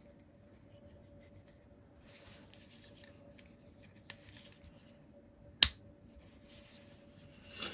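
Insta360 One RS action camera being fitted into its plastic mounting frame. Light handling rustle, a small click about four seconds in, then one sharp snap a second and a half later as it clicks into place, and a short scrape near the end.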